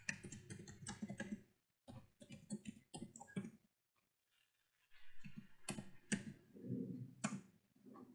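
Faint typing on a computer keyboard: quick, irregular runs of key clicks, with a pause of about a second around the middle.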